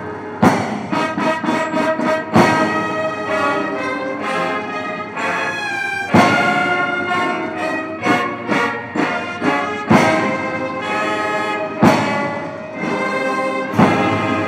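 Military brass band playing a ceremonial piece during a salute, with sustained brass chords and loud drum and cymbal strikes every few seconds.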